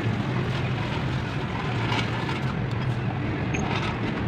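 Steady low mechanical hum with a noisy hiss over it, and a few faint light clicks.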